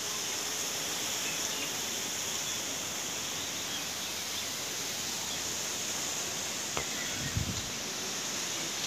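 Wind from an approaching cyclone blowing through trees and palm fronds: a steady rushing hiss of rustling leaves.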